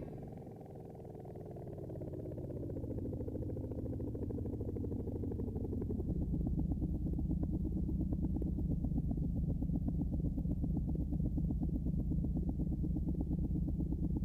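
Nunomo Qun mk2 synthesizer playing a muffled low drone. Its tones slide down in pitch over the first six seconds, then hold as a steady, rapidly pulsing buzz.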